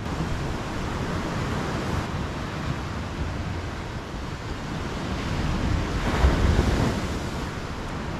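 Sea surf washing onto a sandy beach in a steady rush, with one wave building to its loudest about six seconds in. Wind rumbles on the microphone.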